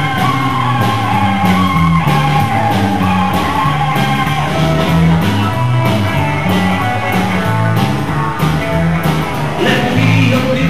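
Live rock and roll band playing: electric guitar over an electric bass line that steps from note to note and drums keeping a steady beat.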